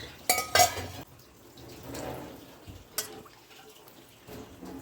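Kitchen utensils handled against cookware: two sharp clinks with a brief metallic ring close together near the start, then softer handling noise and another single click about three seconds in.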